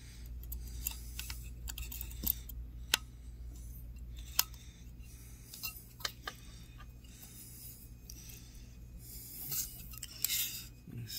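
Scattered small clicks and taps of a computer cooling fan's hub and blade being handled and turned, with a few more close together near the end, over a steady low hum.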